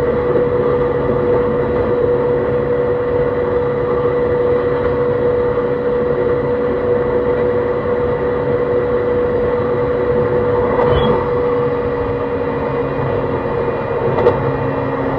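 JR East E131-600 series electric train running at steady speed, heard from inside: wheels rolling on rail under a steady hum from the Hitachi hybrid-SiC traction motors and inverter. Two short knocks come about two-thirds of the way in and again near the end.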